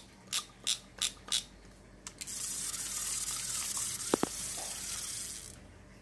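A spinning fishing reel being handled: five sharp clicks, about three a second, then a steady hiss for about three seconds with a short squeak in the middle.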